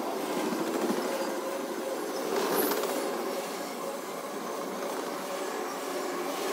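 Double-stack intermodal freight train's well cars rolling past, a steady rumble and rattle of steel wheels on rail, with a faint steady squeal from the wheels.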